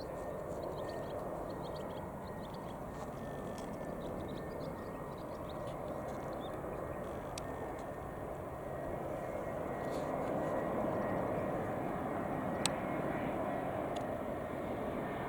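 Airbus A320 jet airliner on its landing approach: a steady rushing engine rumble with a faint high whine, growing a little louder about ten seconds in. There is a single sharp click near the end.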